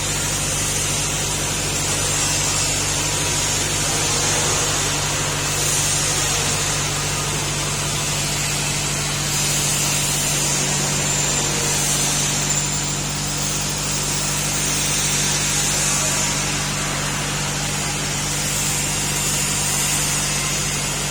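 Rice milling machine running steadily: a constant low hum under an even hiss.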